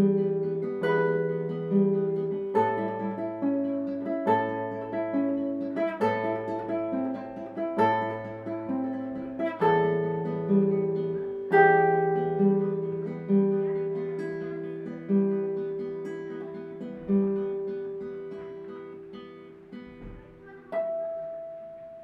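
Classical nylon-string guitar played fingerstyle: a slow piece with plucked bass notes under a melody, growing quieter toward the end. Near the end a single last note is struck and left to ring out.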